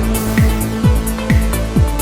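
Background electronic dance music with a steady kick drum a little over twice a second, hi-hats and a held synth tone.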